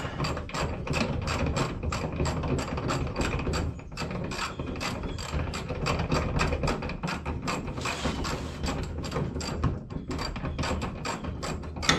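Ratchet wrench clicking steadily, about four clicks a second, as a hood hinge bolt is backed out, ending with one louder click.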